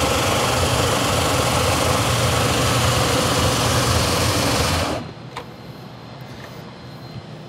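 Hybrid floor buffer with a Hydro Sand multi-drive plate and 40-grit sandpaper, sanding a cupped hickory floor panel: a steady motor hum under a gritty sanding hiss. It cuts off abruptly about five seconds in, leaving only a few faint clicks.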